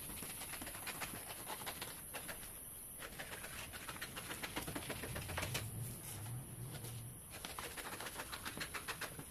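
Scissors cutting through a large sheet of pattern paper: a continuous run of quick, crisp snips with the paper rustling.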